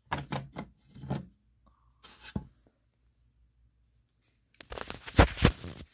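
Handling noise: a few short scrapes and clicks of things moved by hand, then a pause, then a louder clatter of rustling and knocks near the end.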